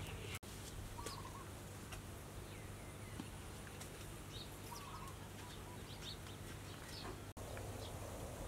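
Outdoor rural ambience: scattered faint bird chirps over a steady low background rumble. The sound drops out for a split second twice, about half a second in and near the end.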